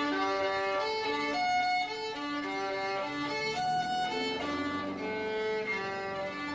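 Background music: a violin playing a slow melody of held notes.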